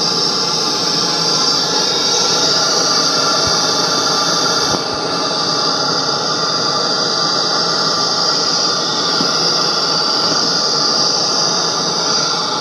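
Bluetrek PA-12 portable PA speaker playing loudly through its replacement mini amplifier module, proof that it works again after its burnt output ICs were bypassed. The sound is a dense, steady hiss-laden noise that shifts slightly about five seconds in, while the speaker's display reads 87.5.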